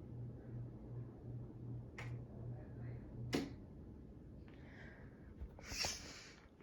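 Ceiling fan motor humming low with a pulsing beat about four times a second. The hum cuts off with a sharp click a little over three seconds in. A short rustle follows near the end.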